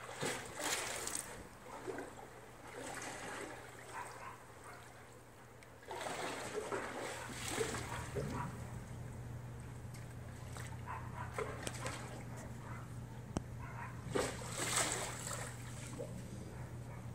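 Swimming pool water sloshing in waves set going by an earthquake, splashing against the pool's edge and slopping over onto the deck in irregular surges. A steady low hum comes in about six seconds in.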